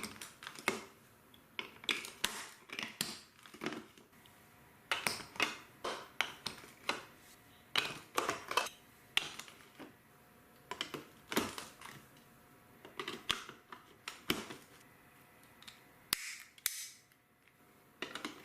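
Hard plastic toy parts being handled and snapped together: a run of irregular sharp clicks and taps, several close together at times, with short quiet gaps between.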